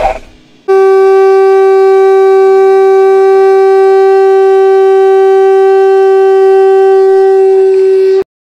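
An animal horn blown as a trumpet: one loud, steady note held for about seven seconds, starting about a second in and cutting off abruptly near the end.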